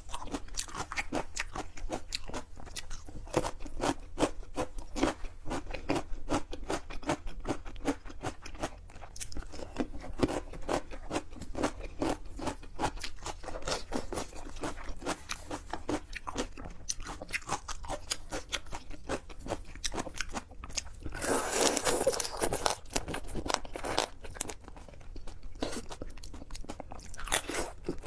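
A person eating seafood close to the microphone: continual crunching and wet chewing, made up of many small irregular clicks. About three-quarters of the way through there is a louder, noisier stretch of about two seconds.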